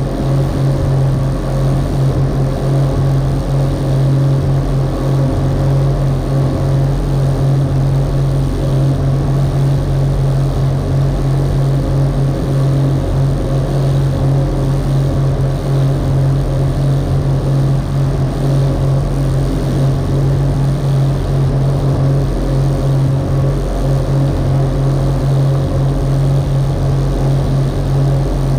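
Rigid inflatable boat's engine running steadily at speed, a loud even low drone, with water rushing along the hull.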